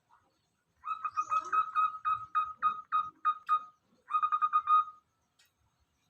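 Zebra dove (perkutut) calling: a run of short, repeated cooing notes lasting about three seconds, a brief pause, then a quicker burst of notes.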